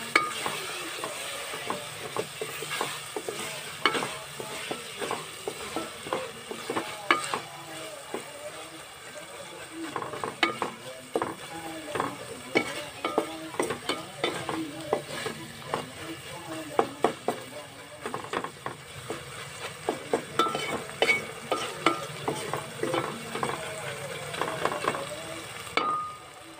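Wooden spatula stirring and scraping an onion-tomato spice masala frying in oil in a metal pot: a steady sizzle with frequent irregular knocks and scrapes of the spatula against the pot.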